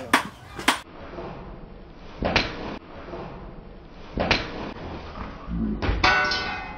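A hand-forged knife made from a tractor plough disc chopping through a carrot stood on a metal post, a sharpness test: two sharp knocks in the first second, softer chops about two and four seconds in, and a longer rattling clatter near the end.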